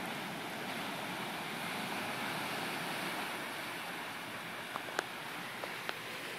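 Steady rushing of wind and rain over floodwater, with a few sharp clicks about five seconds in.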